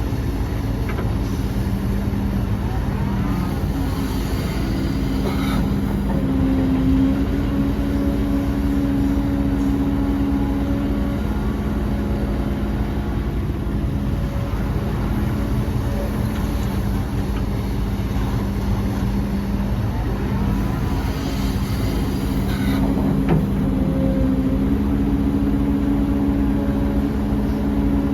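Heavy diesel engines of earthmoving machinery running steadily, with a second, higher engine note coming in for several seconds at a time as a machine works under load.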